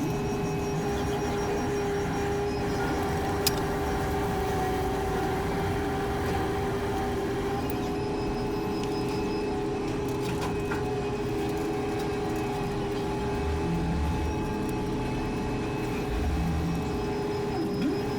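Steady mechanical hum with one sharp click a few seconds in.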